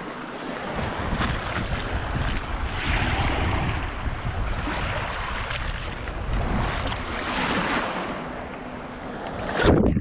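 Small waves washing on a stony shore at the water's edge, swelling every couple of seconds, mixed with wind buffeting the microphone. Just before the end, a loud splash as the camera dips into the water, after which the sound turns muffled.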